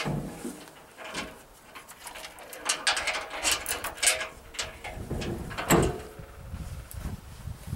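Old Chevy pickup's steel tailgate, hung on chains, being folded up against a log wall and let back down: chains rattling and metal creaking and clanking, with a sharp click at the start and a loud clunk a little past halfway.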